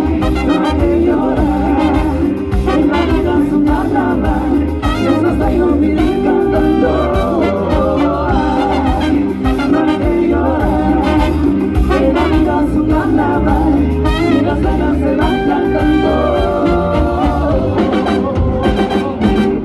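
Live Latin band playing an upbeat salsa number: brass carrying the melody over a steady bass and percussion beat.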